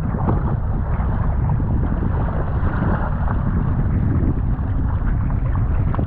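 Wind buffeting the microphone of a camera mounted on a kayak's bow, over water rushing and slapping against the hull as the kayak runs with choppy, wind-driven waves. It is a loud, steady rush throughout.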